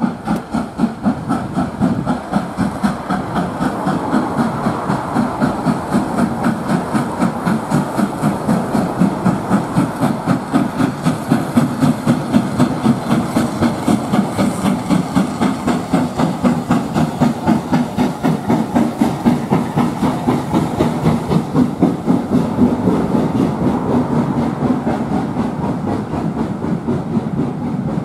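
Southern Railway S15 class 4-6-0 steam locomotive No. 847 working a passenger train past, with a steady rhythmic exhaust beat and hissing steam, about three beats a second. The coaches follow, rolling by with wheel noise on the rails.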